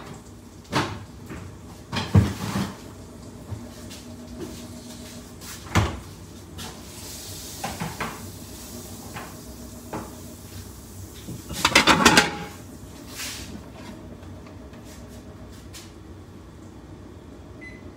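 Kitchen handling sounds: scattered knocks and clacks of cupboard doors and utensils, with a short burst of rattling clatter about two-thirds of the way through, over a faint steady low hum.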